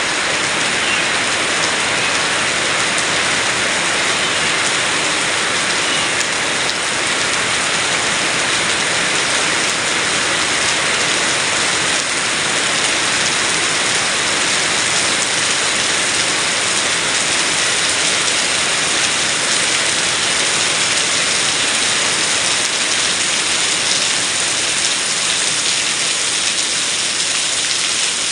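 Heavy rain pouring down steadily and falling on surfaces, a dense even hiss.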